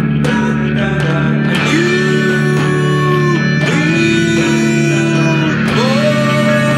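Instrumental passage of a slow rock song: guitar playing long held notes, each sliding up into its pitch, three times over a steady low accompaniment.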